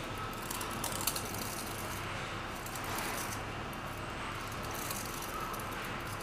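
Hands turning and handling a small glazed ceramic matcha whisk holder, giving light clicks and rubbing in a couple of short clusters over a steady background hum.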